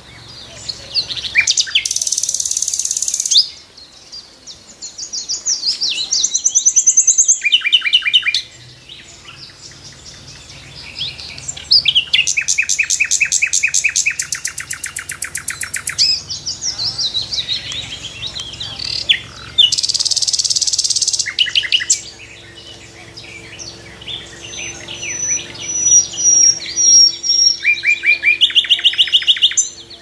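Songbirds calling and singing, one phrase after another with abrupt changes between them: fast pulsing trills, high thin buzzy notes and scattered chirps.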